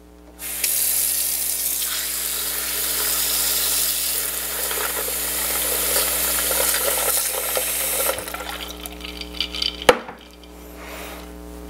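Kitchen faucet running cold water into a glass ice bucket of ice: a steady rush of water for about seven and a half seconds that cuts off suddenly when the tap is shut. A few light clicks follow, then one sharp knock near the end.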